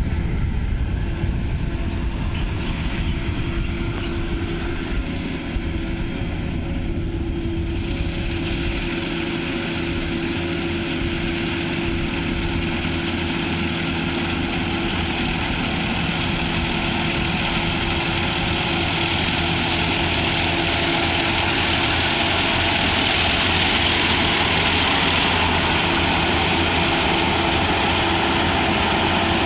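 Engine-driven harvesting machinery running steadily, a low engine hum with a continuous hiss that grows thicker and slightly louder after about eight seconds.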